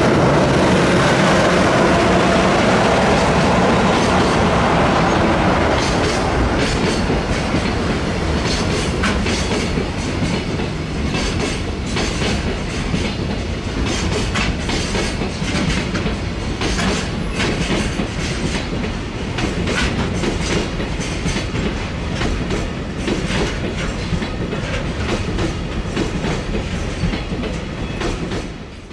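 JR Freight EH200 'Blue Thunder' electric locomotive passing, with a whine from its motors at first, followed by a train of container wagons rolling by with wheels clacking over the rail joints.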